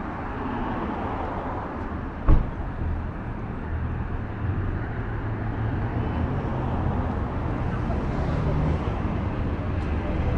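City street ambience with traffic noise. A single sharp knock comes about two seconds in, and a low vehicle engine rumble grows louder from about four seconds in.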